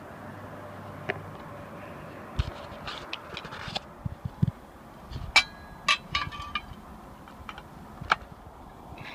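Camping cookware being handled: metal pots and lids clinking and scraping together. Several sharp clinks ring briefly about five to six and a half seconds in, and another comes near the end.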